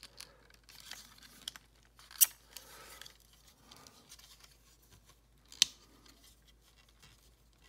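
Hard plastic parts of a Mastermind Creations third-party Transformers figure being turned and shifted by hand, with light rustling and small clicks. Two sharp clicks stand out, about two seconds in and just past halfway.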